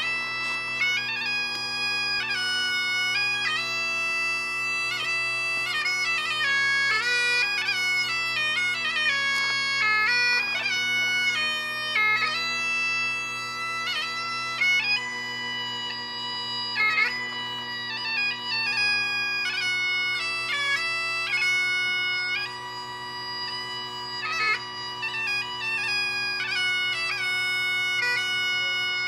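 Bagpipes playing a melody on the chanter over the steady drone of the drone pipes.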